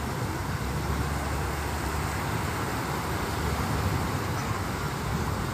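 Steady beach ambience: an even wash of surf with low wind rumble, and no single wave break standing out.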